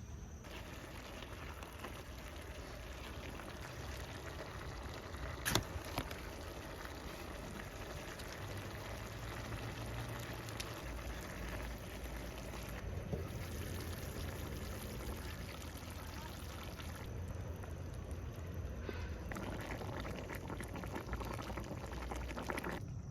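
Liquid boiling in a pot, a steady dense bubbling with one sharp click about five and a half seconds in.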